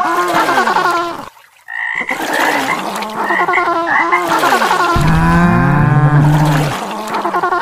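Electronic, cartoon-like animal calls with pitches that slide up and down in quick repeated sweeps. They cut out abruptly for about half a second about a second and a half in. A deeper, louder warbling call comes in about five seconds in.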